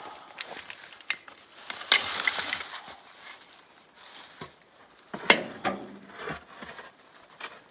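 Scattered metallic clicks and knocks from working a hydraulic jack and wooden blocks under a tractor's axle, with a scraping rush about two seconds in and a sharp knock about five seconds in.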